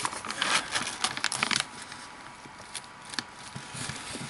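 Scrapbook paper pages being handled and turned: crackly rustling and short ticks of paper, busiest in the first second and a half, then a few scattered ticks.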